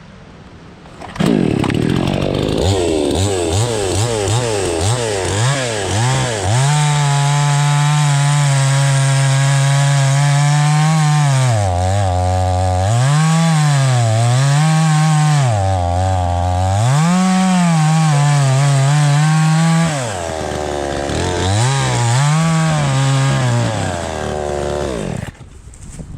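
Cheap chainsaw starting up about a second in and running fast, its pitch repeatedly dipping and recovering as the chain bites into a large log. Its speed drops about twenty seconds in, rises again in a few short revs, and it stops near the end.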